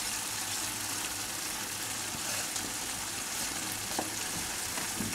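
Morels in a cream-and-cheese sauce sizzling in a cast-iron skillet over a gas burner: a steady, even hiss, with a faint knock about four seconds in.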